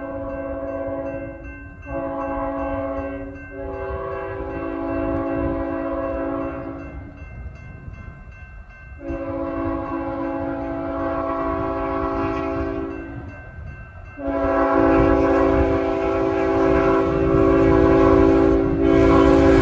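Multi-tone air horn of an approaching BNSF diesel freight locomotive sounding the grade-crossing warning: a short blast about two seconds in between long blasts, with pauses between them. The last long blast is held and louder as the train nears.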